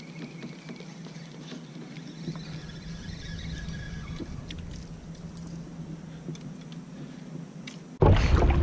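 Quiet handling of fishing gear on a kayak: a faint steady low hum with light clicks and taps. Near the end the sound cuts suddenly to loud wind buffeting the microphone over choppy, splashing water.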